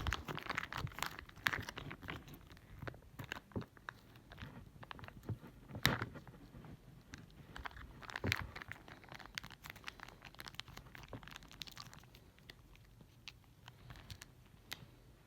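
Plastic packaging crinkling and being torn open by hand, with scattered small clicks and rustles, the louder snaps near the start and around the middle.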